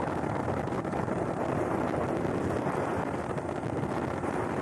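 Steady rushing wind noise on the microphone mixed with the running noise of a moving vehicle travelling along a paved road.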